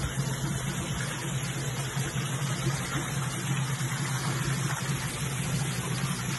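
Steady low machine hum over a constant hiss, unchanging throughout.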